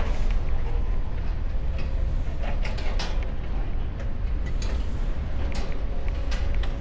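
Wind buffeting the microphone as a steady low rumble, with scattered light clicks and creaks of metal.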